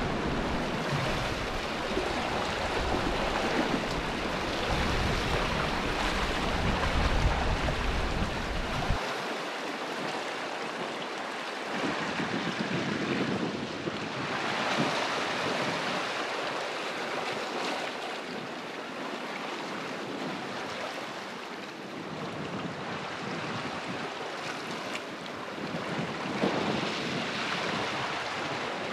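Sea swell washing over and around shoreline rocks, a continuous rush that swells up as waves surge in, about halfway through and again near the end. Wind buffets the microphone with a low rumble until about a third of the way in.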